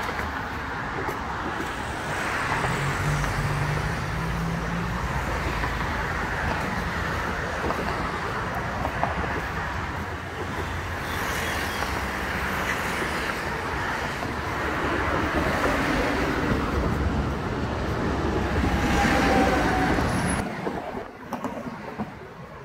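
Steady road traffic noise from passing vehicles, with a low engine hum a few seconds in; it drops away near the end.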